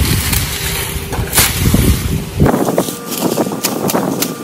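Dry banana leaves crackling and rustling as they are pulled and torn from a banana trunk, in a run of many short snaps in the second half. Wind buffets the microphone in the first half.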